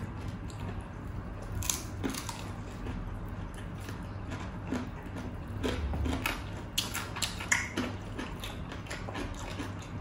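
Close-up chewing and crunching of crispy deep-fried pork (crispy pata and lechon kawali), with scattered crackling bites. A cluster of louder crunches comes about seven seconds in.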